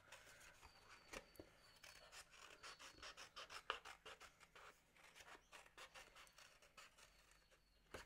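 Scissors cutting a shape out of acrylic paper: a faint run of short snips, a few each second.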